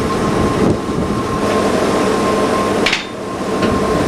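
Mobile crane's engine running steadily, with a short sharp click about three seconds in.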